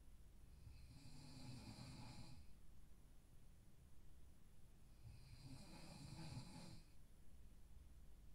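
A person snoring in sleep, two faint snores about four to five seconds apart, each lasting around two seconds.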